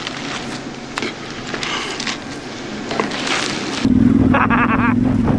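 A rustling, crackling noise with scattered clicks. About four seconds in it gives way abruptly to a motorcycle engine running steadily.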